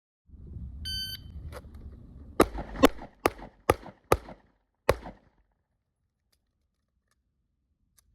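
A shot timer beeps once, and about a second and a half later a pistol fires six shots in quick succession, the last after a slightly longer pause.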